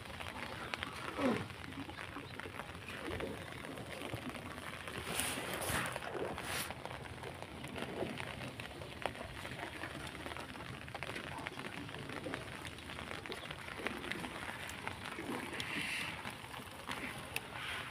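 Water hyacinth leaves and stems rustling and crackling against a wooden boat's hull as it is poled through the floating weed, a steady stream of small ticks and swishes.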